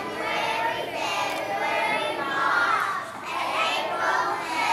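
A group of preschool children singing together in unison.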